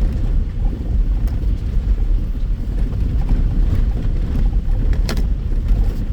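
Land Rover Discovery driving over a rough off-road track, heard from inside the cab: a steady low rumble of engine, tyres and suspension, with one sharp knock about five seconds in.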